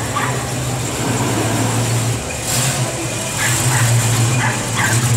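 Shelby GT350H Mustang's V8 running at low revs as the car rolls slowly by, a steady low rumble that grows louder about three and a half seconds in as it passes closest.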